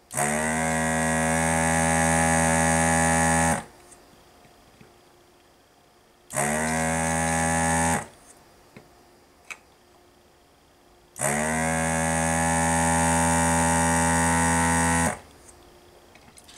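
Desoldering gun's vacuum pump running in three pulls of about three and a half seconds, a second and a half, and four seconds. Each pull is a steady hum that climbs briefly in pitch as the pump spins up, sucking molten solder from a capacitor's legs on a power-supply circuit board.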